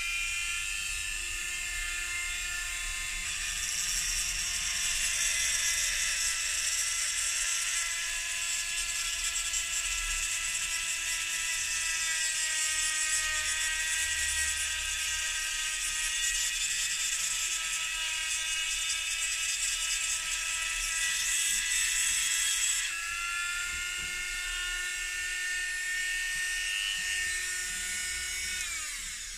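Mac Allister MSRT 130 130-watt rotary tool running at raised speed through its flexible shaft, giving a steady high whine. From about three seconds in until just after twenty seconds, a grinding stone bit pressed against a metal disc adds a harsh hiss. Near the end the motor is switched off and its whine slides down as it spins down.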